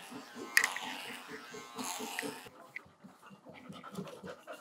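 Labrador panting steadily, with an electric pet hair trimmer buzzing through its coat for the first two and a half seconds before it stops. A sharp click sounds just after the start.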